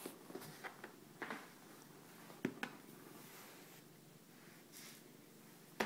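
Quiet handling noise: a few soft clicks and knocks, the sharpest about two and a half seconds in and near the end, and a brief rustle about five seconds in.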